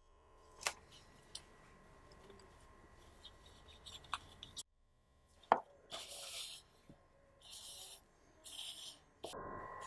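Plastic cling film being stretched over a plastic mixing bowl and pressed down by hand, in three short crinkling rustles, after one sharp knock about halfway through. A few light clicks come earlier.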